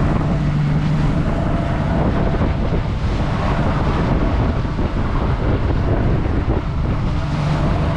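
A boat's outboard motor running steadily underway, a constant low hum, with water rushing along the hull and wind on the microphone.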